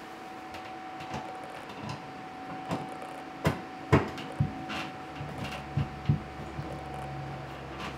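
Scattered clicks and knocks from hands working on a porcelain toilet tank and its fittings, loudest about halfway through. A low steady hum comes in a little after five seconds.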